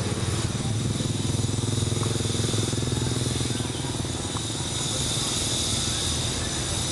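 A steady mechanical drone with a low hum, like an engine running evenly.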